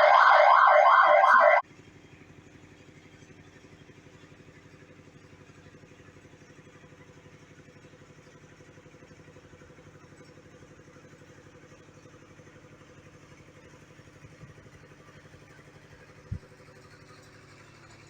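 A loud, siren-like warbling tone for about a second and a half, then the steady low hum of a diesel generator running, with one short knock near the end.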